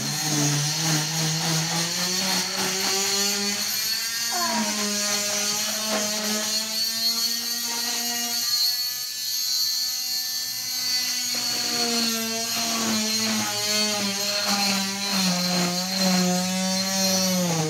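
Oscillating cast saw cutting through a plaster cast: a steady motor whine that dips lower in pitch when the blade bites into the plaster, most clearly in the first couple of seconds and again near the end, and climbs back when the pressure eases.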